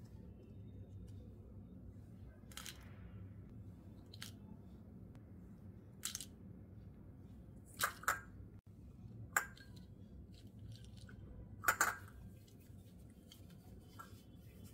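Whole dry spices (cinnamon sticks, cardamom pods, cloves, star anise) being set down on a cloth in a small bowl, giving a series of short, sharp light clicks and crackles, the loudest two about two-thirds of the way through. A faint steady low hum runs underneath, and near the end comes a softer rustle as the cloth is gathered up.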